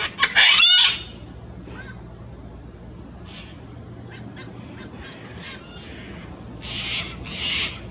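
Sulphur-crested cockatoo screeching: a loud harsh call right at the start, a few faint short calls in the middle, then two harsh squawks in quick succession near the end.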